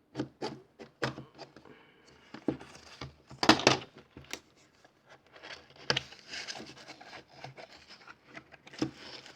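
Cardboard box of an action figure being opened by hand: irregular knocks and rubbing of the cardboard, the loudest knock about three and a half seconds in, with steadier rustling in the second half.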